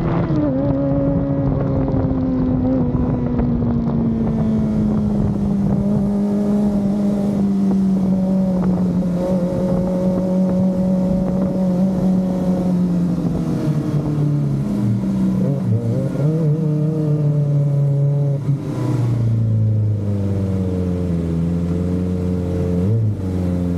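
Kawasaki Ninja ZX-25R SE's 250cc inline-four running through an Akrapovic slip-on exhaust, its pitch drifting slowly with the throttle and settling lower near the end. Over it runs a faint hiss that the owner traces to the engine and wonders whether it is the fuel injection.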